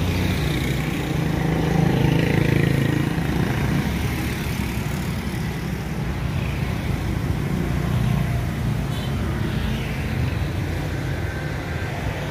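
Road traffic going by: a steady low engine rumble that swells as vehicles pass, loudest about two seconds in and again around eight seconds.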